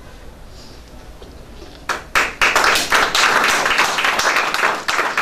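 Audience clapping, breaking out about two seconds in and going on as dense, steady applause.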